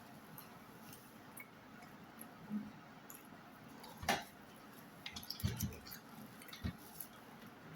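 Quiet eating sounds: chewing with wet mouth clicks, a sharper click about four seconds in and a few soft low knocks afterwards.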